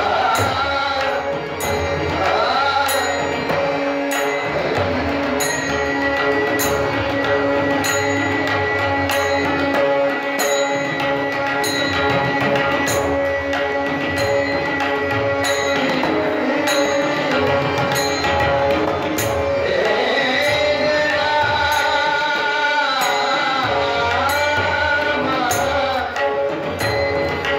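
Marathi bhajan music with long held melodic notes and drumming. Small cymbals strike sharply about once a second. A voice weaves a wavering melody in roughly the last third.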